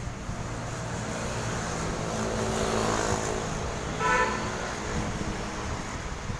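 A small car drives past close by, its engine and tyres growing louder as it nears. A short horn toot sounds about four seconds in.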